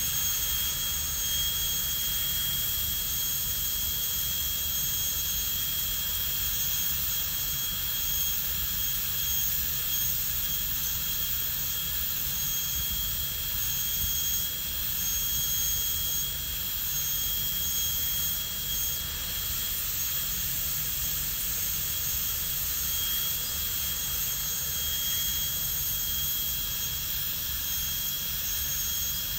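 High-speed dental handpiece with a steady high whine and hiss, its bur cutting a typodont tooth to reduce the walls for a crown prep. The whine dips briefly a couple of times as the bur is lifted or pressed.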